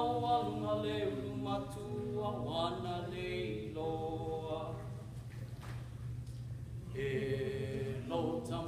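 Chanted singing in slow phrases with long held notes, easing off briefly around the middle before a new phrase starts.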